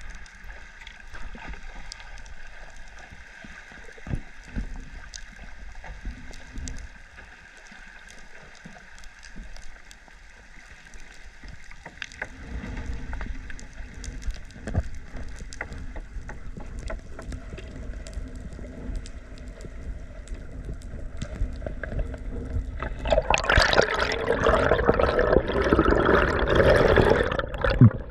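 Water sloshing and gurgling with scattered small clicks. Roughly two-thirds of the way in it turns into several seconds of louder churning splashing and bubbling, then eases off near the end.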